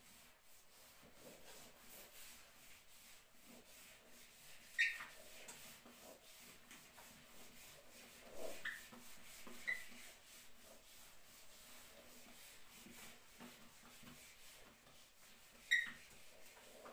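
Handheld eraser scrubbing across a whiteboard, a faint steady rubbing broken by about four short squeaks, the loudest about five seconds in and near the end.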